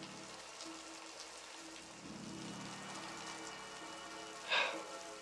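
Steady rain falling, with a low sustained music drone underneath; a short hissing burst stands out about four and a half seconds in.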